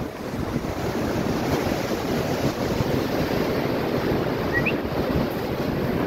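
Sea waves washing and splashing against the shore under a seaside pier, a steady surf noise with wind buffeting the microphone. A short rising chirp about four and a half seconds in.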